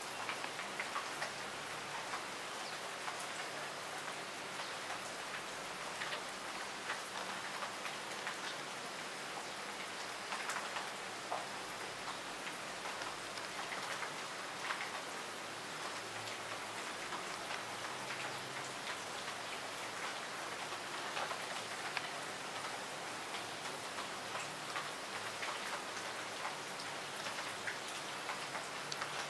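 Steady rain falling, with many scattered, louder single drops landing close by.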